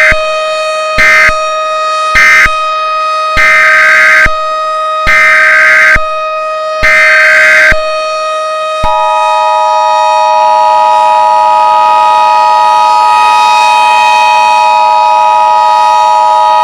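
Emergency Alert System data tones: three short buzzy digital bursts, then three longer ones about a second each. About nine seconds in, the steady two-tone EAS attention signal starts and holds. A steady electronic drone runs underneath throughout.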